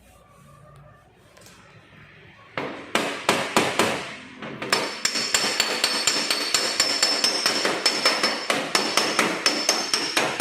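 Hammer blows on sheet metal: rapid repeated strikes with a metallic ring, about four to five a second. They start about two and a half seconds in and pause briefly before running on steadily.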